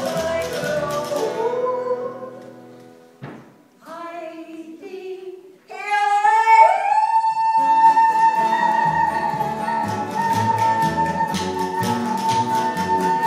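Live acoustic folk music: acoustic guitars and upright bass play, then drop away about two seconds in. A woman sings a few unaccompanied sliding phrases, then holds one long high note from about halfway through. The guitars and bass come back in under the held note.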